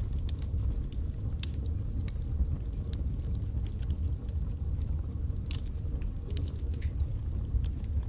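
Wood fire burning in a fireplace: a steady low rumble of the flames with scattered sharp crackles and pops from the burning logs.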